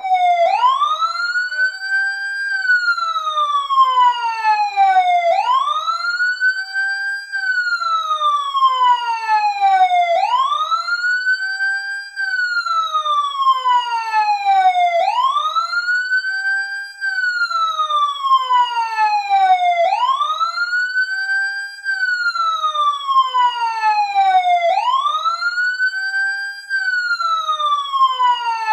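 Police siren sounding a slow wail. The pitch rises over about two seconds, then falls over about three, and the cycle repeats about every five seconds.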